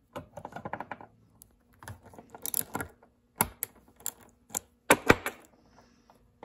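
Small metal derailleur parts clicking and clinking as they are worked apart by hand. There is a quick run of small clicks at the start, another cluster near the middle, then several separate sharper clicks and knocks.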